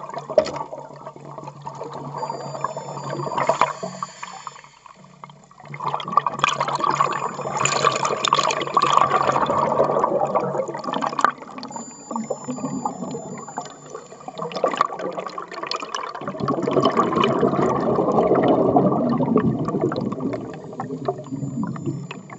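Underwater rush of moving water with bubbling and small clicks, as heard through a camera underwater. It swells louder about six seconds in and again about sixteen seconds in.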